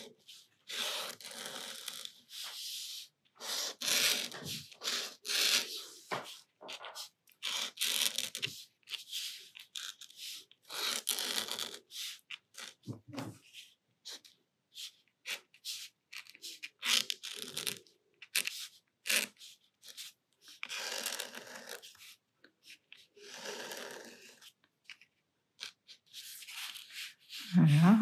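Posca paint marker nib rubbing across watercolour paper in short, irregular strokes with brief pauses between them, drawing leaf outlines.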